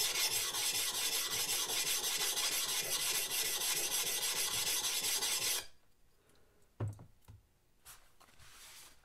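A rectangular whetstone rubbed quickly back and forth over the steel cheek of a vintage Hults Bruk double-bit axe head, a steady rasping scrape as the cheeks are stoned after filing. It stops suddenly about five and a half seconds in, followed by a couple of faint knocks.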